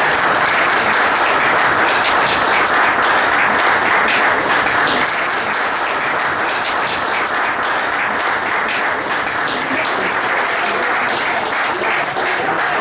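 Audience applauding, many hands clapping at once in a dense patter that eases a little after about five seconds.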